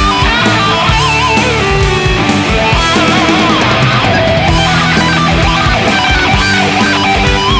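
Background music: a heavy metal song with distorted electric guitar lines over a steady drum beat.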